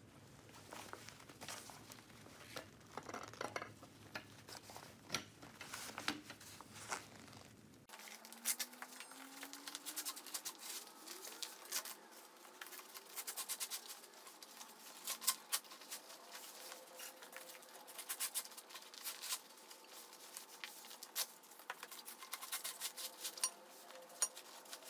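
Faint rustling of nylon swing fabric with scattered light clicks and taps from the foam-padded frame tubes and plastic connectors being handled and fitted together. From about eight seconds in the clicks come sharper and more often.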